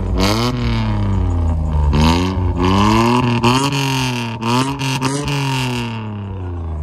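A high-performance engine revved in a series of quick throttle blips, its pitch swinging down and snapping back up about six times.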